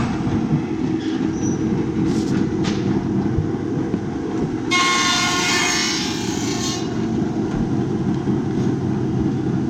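Muller Martini Prince 1296 perfect binder starting up and running a book block through its clamp, milling and gluing cycle: a steady mechanical clatter that begins with a click, with a louder, harsh burst carrying a whining tone for about two seconds near the middle.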